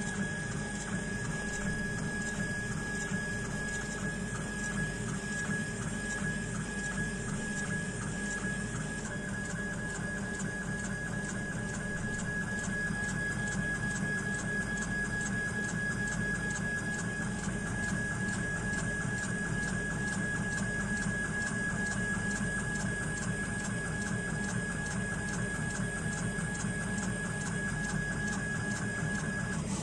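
Acrylic laser engraving machine raster-engraving: the laser head's stepper-motor drive shuttles rapidly back and forth, making a steady high whine over fast, regular ticking at each pass, with a low machine hum underneath. The whine stops near the end as the engraving pass finishes.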